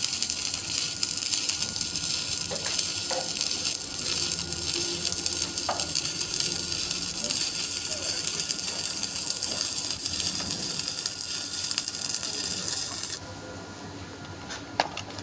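Shielded metal arc (stick) welding: the electrode's arc crackles and sizzles steadily as it burns a bead on a steel plate, then stops suddenly about 13 seconds in as the arc is broken.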